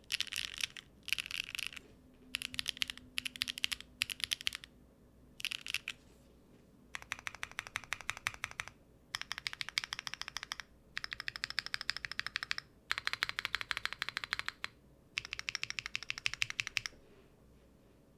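Mechanical keyboard typing on factory-lubed HMX Hibiscus linear switches in a Neo70 with an aluminium plate and no foam, under GMK keycaps. It starts with short bursts of keystrokes. From about seven seconds in come longer runs of very fast, even key strikes, which stop about a second before the end.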